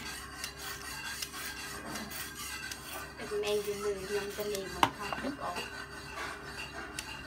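Julienne peeler scraping down a carrot in repeated rasping strokes, cutting it into thin strips. A brief humming tone sounds in the middle, and there is one sharp click a little under five seconds in.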